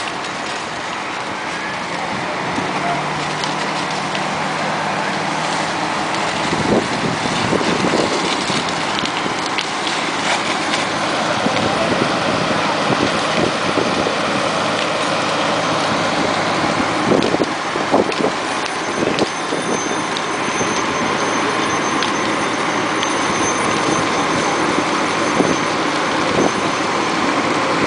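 Fire engine pump running steadily while a hose stream sprays water onto the burning house: a constant rushing noise with scattered knocks and pops.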